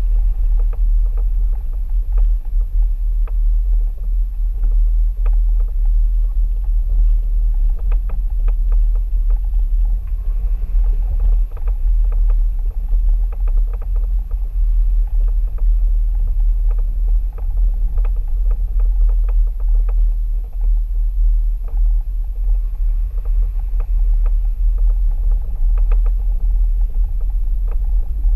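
Mercedes-Benz ML350 BlueTec 4Matic SUV driving on a gravel and dirt track: a steady, deep rumble from the moving vehicle, with scattered small clicks and knocks of stones under the tyres.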